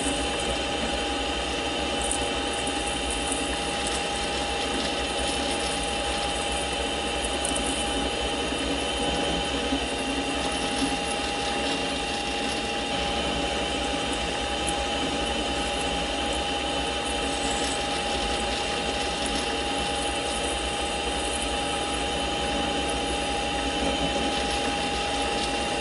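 Mini lathe running at a steady speed with a steady whine while a spring-mounted parting blade cuts off a 1-1/4 inch 1018 steel rod under hand feed.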